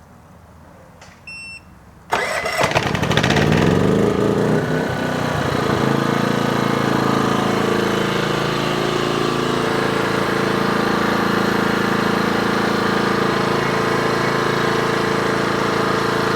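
A short electronic beep, then the EcoFlow Smart Generator's gas engine starts about two seconds in. Its pitch rises as it comes up to speed, then it settles into a steady run with no load on it.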